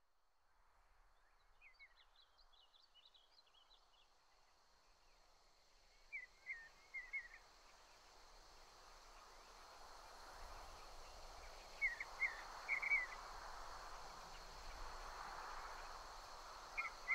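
Faint outdoor ambience fading in: a steady hiss that slowly grows louder, with small birds calling in short groups of quick chirps about two seconds in, around six to seven seconds, and again around twelve to thirteen seconds.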